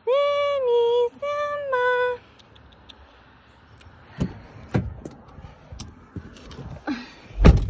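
A woman calls a cat's name in a loud sing-song, two falling two-note calls one after the other. A few scattered knocks follow, and near the end a car door shuts with a heavy thump.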